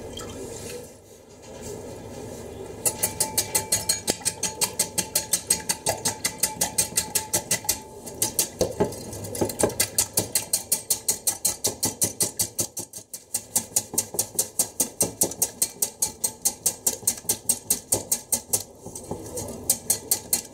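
Wire whisk beating eggs and milk in a glass bowl, its wires ticking against the glass about five times a second, with two short pauses.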